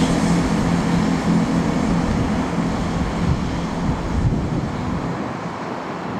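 Diesel engine drone of a Class 165 Networker Turbo diesel multiple unit, a low hum with several steady tones that fades over the first few seconds as the train draws away. Wind rumbles on the microphone near the end.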